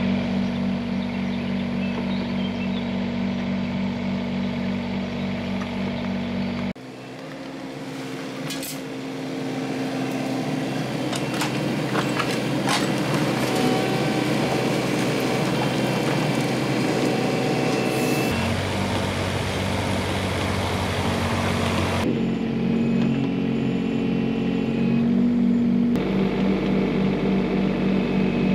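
Komatsu mini excavator's diesel engine running while the bucket digs into soil, roots and stones, with scattered knocks and scrapes. The engine note changes abruptly a few times.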